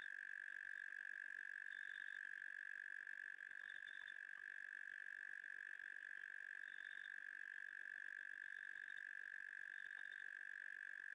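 Faint night chorus of small calling animals at a waterhole: one steady high-pitched drone, with a shorter, higher chirp every two to three seconds.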